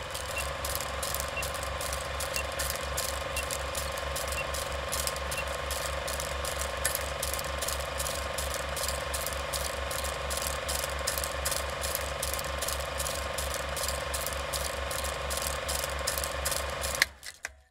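Old movie projector sound effect: a fast, even clicking of the film mechanism over a steady hum. It cuts off abruptly shortly before the end.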